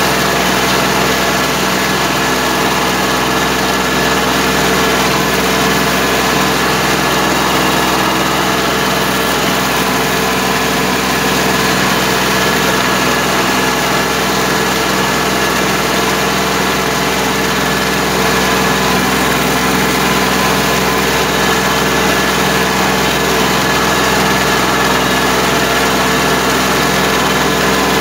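Kubota B2140 compact tractor's diesel engine running steadily while pulling a rotary tiller through flooded paddy mud.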